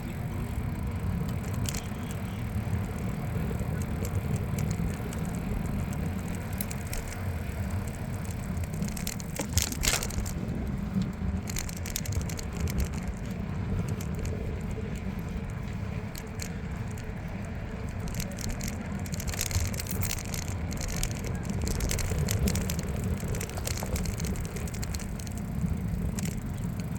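Wind buffeting the microphone of a moving bicycle, a steady low rumble, with scattered clicks and rattles from the bike over the ground.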